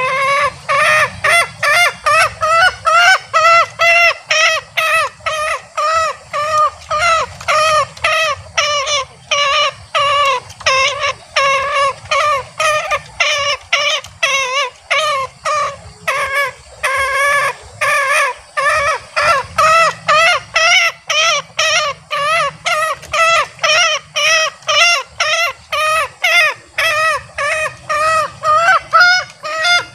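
Male green junglefowl calling: a long, unbroken series of short pitched notes, about two to three a second. This is the repeated 'ngekek' cackling call of the cock.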